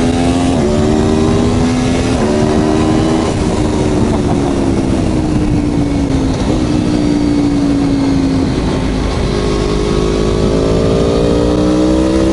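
Aprilia Tuono V4 1100 Factory's V4 engine through an Arrow exhaust under way, pulling hard with two quick upshifts in the first two seconds, then falling in revs for several seconds before climbing again and shifting up near the end. Steady wind rush lies underneath.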